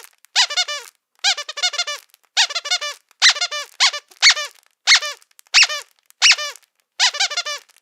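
Squeaky dog toy squeezed over and over: clusters of short, shrill squeaks about once a second, each squeak dipping slightly in pitch.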